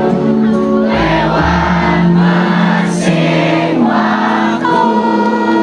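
Live pop concert music amplified through a PA, with many voices singing the melody together, like a crowd singing along.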